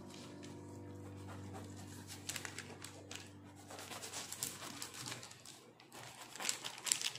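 A chef's knife sawing through the crisp, sesame-crusted crust of a pan-fried pumpkin flatbread: a series of crackling crunches, densest and loudest near the end. Soft piano music dies away during the first seconds.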